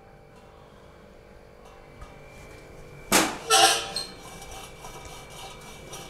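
Faint, quiet room tone, with a short louder sound about three seconds in, then light, evenly spaced strokes of a brush rubbing oil onto a metal baking tray.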